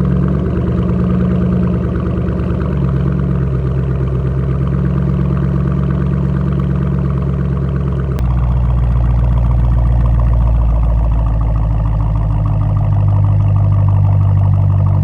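Car V8 engine running steadily, likely the 2006 Mustang GT's 4.6-litre V8. About eight seconds in the sound changes abruptly to a deeper tone.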